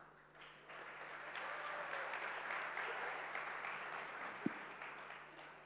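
Audience applauding, swelling about half a second in and fading toward the end, with one brief knock near the end.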